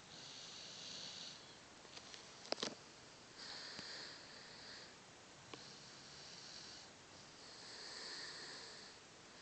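A sleeping Cocker spaniel mix snoring faintly: four slow, hissy breaths, each lasting about a second and a half. A couple of short, sharp clicks come between the first and second breath.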